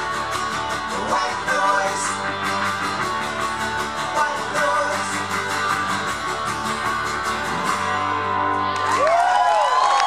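Live band playing the closing bars of a song, with a strummed acoustic guitar and a second guitar. The music stops near the end and the audience starts whooping and cheering.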